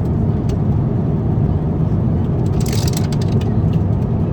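Steady low roar of an Airbus A350-900's cabin in cruise, engine and airflow noise, with a short rustle about two and a half seconds in and a few faint clicks.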